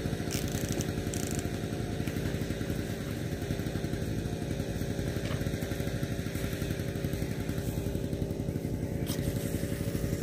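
A small combustion engine running steadily with a fast, even pulse.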